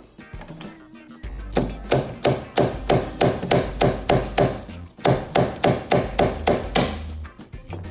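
Slide hammer striking its stop again and again, pulling on a glue tab stuck to a car's rocker panel: quick, evenly spaced metallic knocks about three a second, with a brief pause midway. Background music plays underneath.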